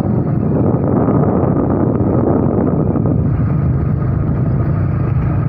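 Engine of a moving vehicle running steadily, with wind noise on the microphone.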